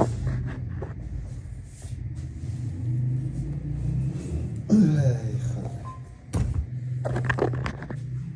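Rumbling handling noise as the phone is moved about and a fleece jacket brushes against its microphone, over a steady low hum. A short voice sound comes about halfway through.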